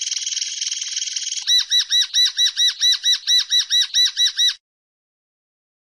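Common linnet singing: a fast, dense trill, then from about a second and a half in a run of about fourteen repeated arched notes, four to five a second, which stop a little over a second before the end.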